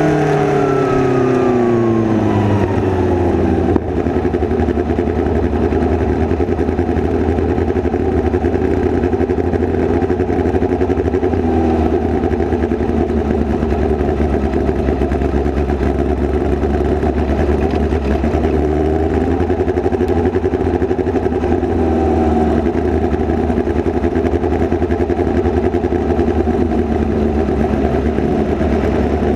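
Midget race car's engine heard from an onboard camera in the cockpit: the revs fall away over the first few seconds, then it runs at low, steady revs with a few brief slight rises.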